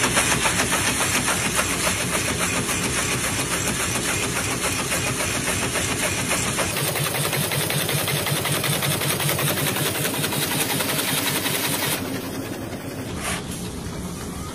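Match-splint cutting machinery running with a fast, steady clatter. The sound changes about seven seconds in and turns quieter about two seconds before the end.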